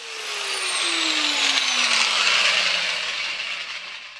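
Angle grinder with a thin cut-off disc winding down after cutting steel, its whine falling steadily in pitch over about three seconds, with a rushing hiss that swells and then fades.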